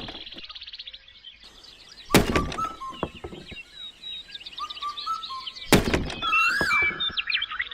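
Two heavy thuds, about three and a half seconds apart, with high chirping and whistling sounds between and after them.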